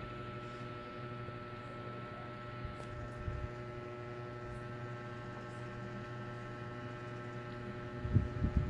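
Steady indoor hum made of several fixed tones, with a few low thumps near the end.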